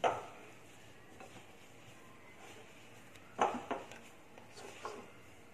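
Hand mixing crumbly flour-and-khoya dough in a glass bowl: a sharp clack at the very start, faint rubbing, then a few brief scuffs and knocks of the bowl about three and a half seconds in and again near five seconds.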